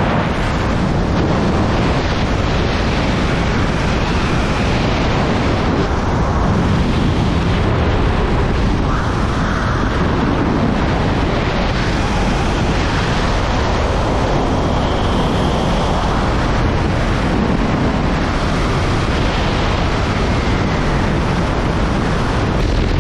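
Loud, steady wind rush buffeting the microphone of a person hanging on a line beneath a helicopter in flight, with the helicopter's rotor and engine noise blended into it.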